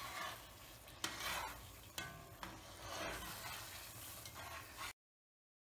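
A spoon stirring thick blackberry jam in a metal pot as it cooks back toward the boil, with a faint sizzle and two light clicks of the spoon against the pot. The sound cuts off abruptly near the end.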